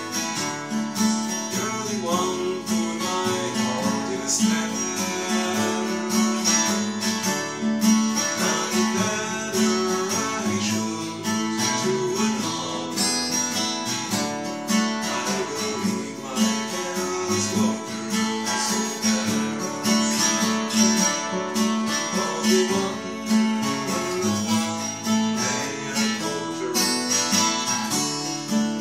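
Acoustic guitar strummed steadily, playing an arrangement of a very old Irish song.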